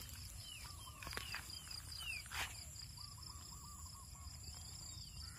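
Faint outdoor ambience: a steady high-pitched insect trill, with short falling bird chirps every second or so and soft warbling calls. There is one brief sharp noise about two and a half seconds in.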